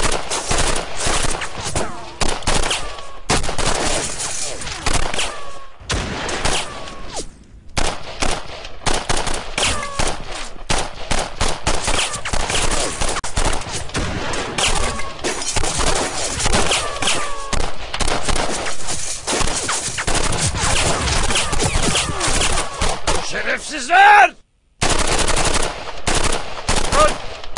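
Sustained automatic rifle fire: many rapid bursts and shots overlapping in a firefight, with short pauses about 7.5 seconds in and again near the end.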